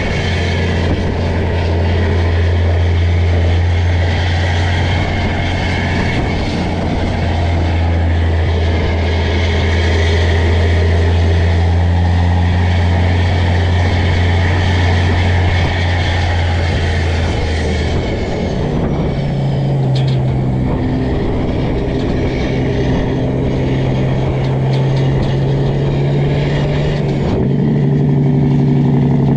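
Caterpillar C15 diesel in a straight-piped Peterbilt running steadily under load. Its note steps higher about two-thirds of the way through and again near the end.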